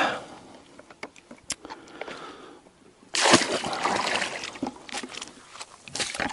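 Water splashing and sloshing, starting suddenly about three seconds in, after a few small knocks.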